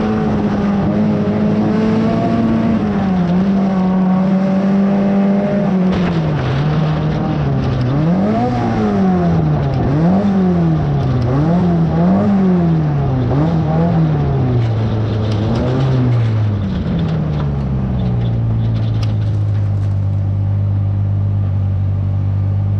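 Race car engine running hard at steady high revs, then revving up and down about once a second for several seconds, then settling to a lower steady drone.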